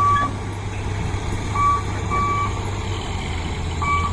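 Truck reversing alarm beeping in short pairs at one pitch, over a steady low engine rumble.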